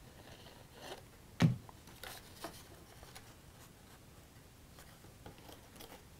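Faint rustling and creasing of cardstock as a paper roof tab is folded down and pressed into place by hand, with a few small ticks. One sharp knock about a second and a half in, the glue bottle being put down on the table.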